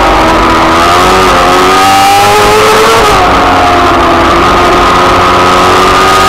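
Onboard sound of a racing sidecar outfit's engine at high revs, very loud: the pitch climbs, drops sharply about three seconds in at an upshift, then climbs again as it accelerates, over a steady rush of wind and road noise.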